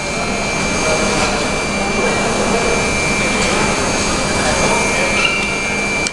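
Steady rushing drone with a constant high whine, the running noise of a stopped metro train and the underground station around it, with voices faintly underneath.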